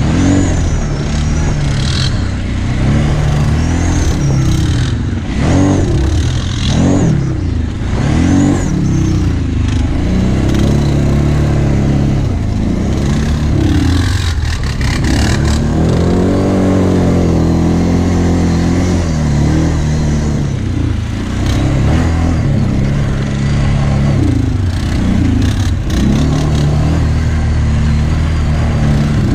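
Kawasaki Brute Force 750 V-twin ATV engine, heard close up from the quad's own rack, revving up and down again and again as it is ridden over a bumpy sand trail. About halfway through the revs climb and hold for a few seconds before the up-and-down throttling resumes.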